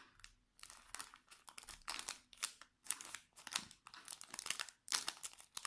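Foil trading-card booster pack wrapper being torn open and crinkled by hand, in irregular crackling bursts.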